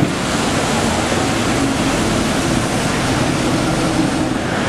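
Busy city street ambience: steady, even noise of traffic and pedestrians, with no single sound standing out.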